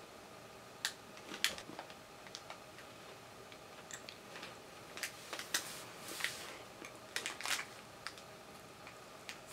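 A person chewing a crunchy chocolate sandwich cookie: scattered sharp crunches and clicks, thickest about a second in and again through the middle.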